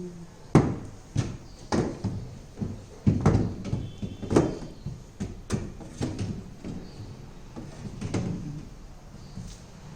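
A series of irregular knocks and thumps of handling, a dozen or so at uneven intervals, as of refrigerator parts or packing being moved about.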